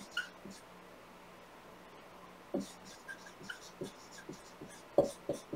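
Dry-erase marker writing on a whiteboard: short scratchy strokes and small squeaks, broken by a few sharp knocks of the marker against the board. The loudest knock comes about five seconds in.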